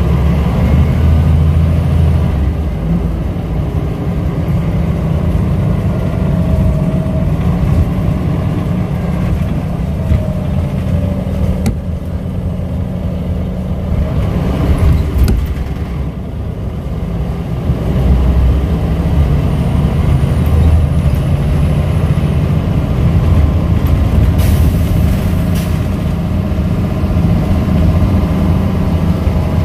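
Scania L94UB bus with a ZF automatic gearbox heard from inside the saloon while driving: the five-cylinder diesel drones low with a rising and falling transmission whine. The engine note drops back about 15 seconds in and builds again from about 18 seconds, and a short high hiss comes near the end.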